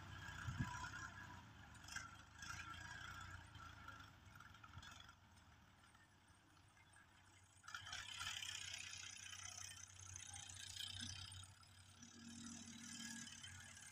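Faint, distant Fiat 480 tractor's diesel engine running as it pulls a tillage implement across the field, with a light rattle of machinery. A soft hiss rises about eight seconds in.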